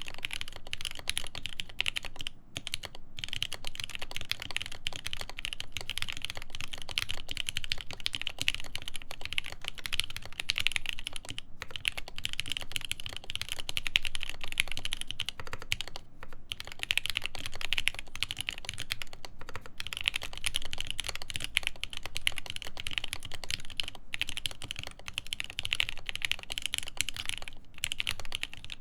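Continuous fast typing on a custom mechanical keyboard with lubed Everglide Tourmaline Blue v2.5 switches, a full polycarbonate plate and GMK doubleshot keycaps. Dense key clacks run on, broken by several short pauses.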